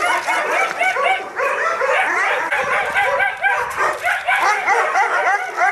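Many kennelled shelter dogs barking and yelping at once: a dense chorus of overlapping short calls with no break.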